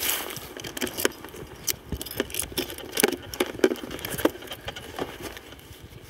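Irregular clicks and rattles of a ratchet strap's metal buckle being handled.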